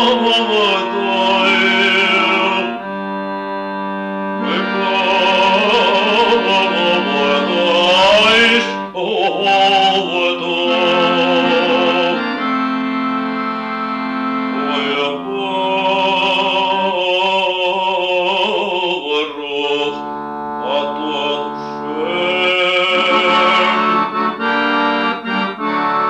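A cantor's lyric tenor voice sings a Hebrew liturgical chant in phrases with a wide vibrato. Sustained harmonium chords run underneath and carry on alone between the sung phrases. It is an old 78 rpm record.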